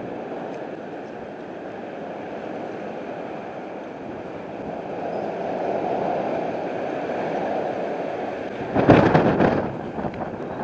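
Strong gusting wind blowing across the microphone, a steady rushing that swells toward the middle, with a sudden loud buffet about nine seconds in.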